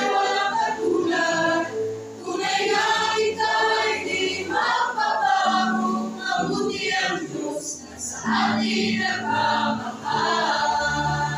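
Mixed choir of women's and men's voices singing together, phrase after phrase with short breaths between.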